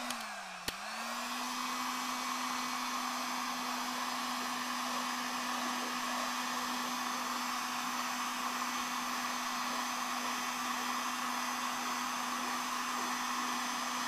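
Electric heat gun running: a steady motor whine with a rush of blown air. Under a second in there is a click and the motor's pitch dips briefly before it settles at a constant speed.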